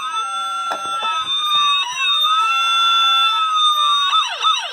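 Electronic siren sound of a FunRise Metro City toy fire truck, played through a speaker covered with tape. It is a slow rising-and-falling wail for about two cycles, then near the end it switches to a fast yelp of quick falling sweeps, about four a second.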